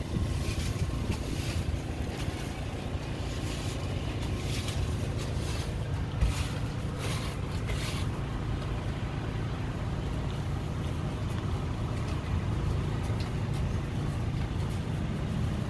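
A steady low rumble, with short bursts of hiss during roughly the first eight seconds.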